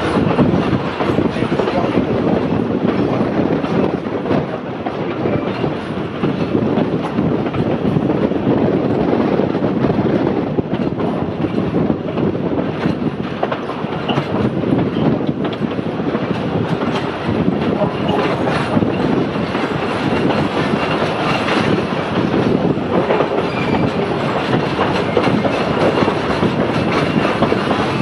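Narrow-gauge heritage passenger train heard from on board a carriage while under way: a steady, loud rumble of wheels on the rails with clickety-clack over the rail joints.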